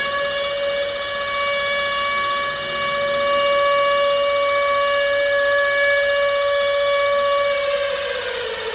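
Civil defense siren sounding a steady wail, growing louder about three seconds in, then starting to wind down in pitch near the end.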